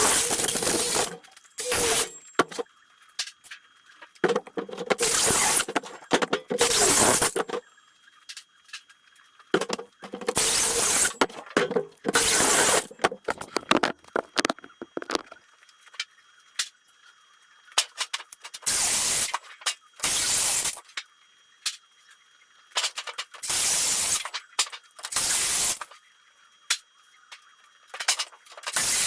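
Sheet metal from old air ducts being worked into drive cleats: repeated short noisy bursts of metal handling, separated by quiet gaps.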